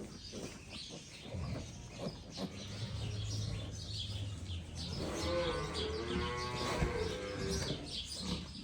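Pigs at a farrowing pen, a sow with newborn piglets: low grunting, then a drawn-out pitched squeal of about two seconds starting about five seconds in, with short high squeaks scattered throughout.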